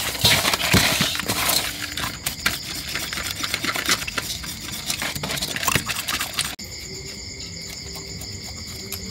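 Hands rubbing coarse salt over whole fish in an aluminium basin, then a knife blade scraping along the salted fish: gritty scraping with many quick clicks. About six and a half seconds in the scraping stops suddenly, leaving a steady high chirring of insects.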